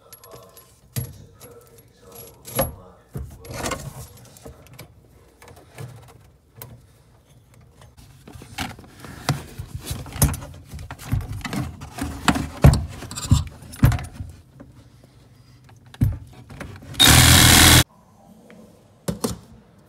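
Clattering, knocking and rustling as plumbing parts under a kitchen sink are handled: braided supply lines, a corrugated drain hose and a plastic sink-drain ring. Near the end there is a short, loud burst of noise lasting under a second, followed by two more knocks.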